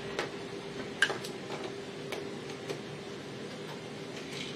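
Chain tie-down and its tensioner worked by hand on a vehicle lashed to an aircraft's cargo floor: a string of irregular metallic clicks and chain clinks, the sharpest about a second in, over a steady hum.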